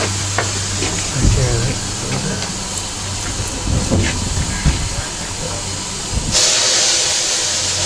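RSH Ugly class 0-6-0 saddle tank steam locomotive moving slowly up to the platform. About six seconds in, a loud hiss of escaping steam starts suddenly.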